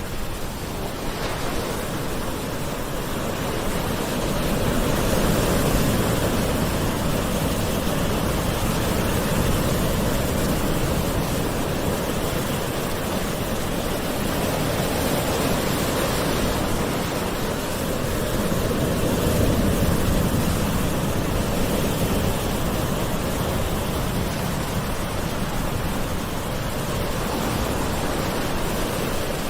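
Gentle sea waves washing ashore: a continuous rush of surf that swells and eases slowly, rising a few times and falling back.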